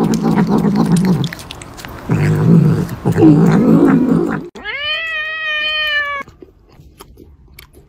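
A cat growling in two low, rough stretches as it eats, then giving one long meow about five seconds in.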